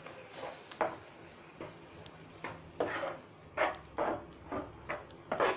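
Spatula stirring and scraping thick rice-flour paste in a frying pan as the flour is mixed into boiling water and cooked down to a dry dough: short, irregular scraping strokes against the pan.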